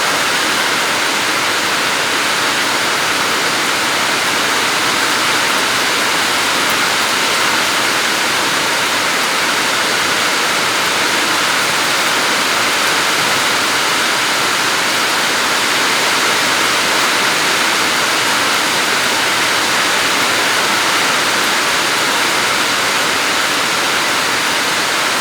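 Floodwater rushing past in a loud, steady, unbroken wash of noise.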